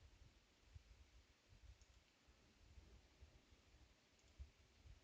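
Near silence: faint room tone with a few soft low thumps and faint clicks.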